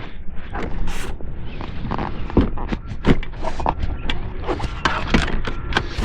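Rear seat of a Ford Super Duty pickup and its latch bracket being worked by hand: a run of irregular clicks, knocks and scrapes as the seat is shifted and lined up to latch.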